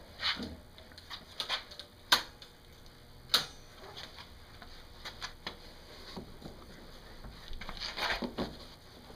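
A scoped rifle being handled: scattered clicks and knocks, with two sharp clicks about two and three and a half seconds in, then a cluster of rubbing and knocks near the end as it is laid down onto the case's foam.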